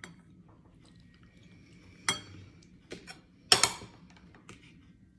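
Metal cutlery clinking against a dinner plate: a few sharp clinks, the loudest about three and a half seconds in.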